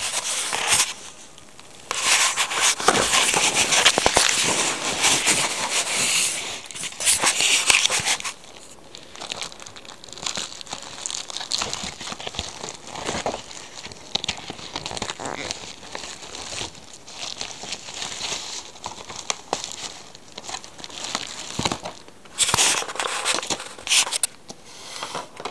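Plastic packaging and paper pages of a magazine crinkling and rustling as they are handled. The loudest crinkling comes from about two to eight seconds in, then softer rustling, with another loud burst of crinkling near the end.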